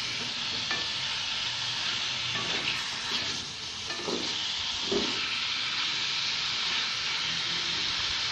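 Boneless chicken pieces sizzling steadily in hot oil in an open pot over a high flame, cooking off the water the chicken releases, with a few brief knocks of a spoon or pot about four and five seconds in.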